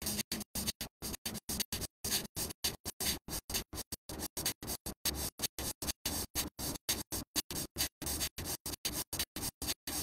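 A person breathing rapidly and forcefully in and out through the nose in bellows-style pranayama (bhastrika), an even run of short, sharp breath strokes at about four a second.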